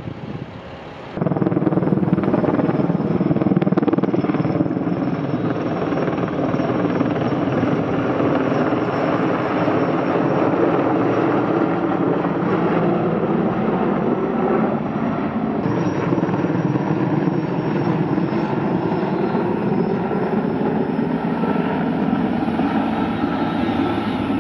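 S-64 Air-Crane heavy-lift firefighting helicopter flying overhead: steady, loud rotor and turbine noise that starts abruptly about a second in.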